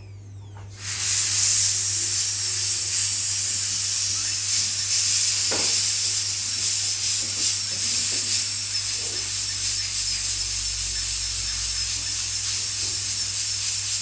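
High-speed dental drill handpiece running, a steady high-pitched hiss that starts about a second in and cuts off at the end, as its burr cuts through a steel bell stuck on a cockatoo's tongue.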